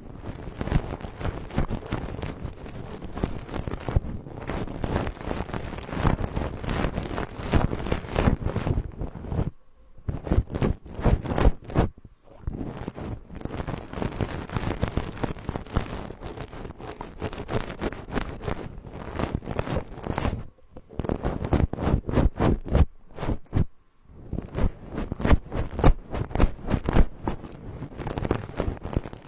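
Close, rapid rustling and scratching of an ASMR trigger rubbed against a binaural microphone, stroke after stroke, with a few short pauses.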